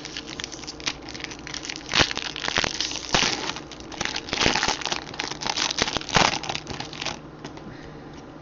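Foil trading-card pack wrapper crinkling as it is torn open and handled: a dense run of crackles and sharp snaps that stops about seven seconds in.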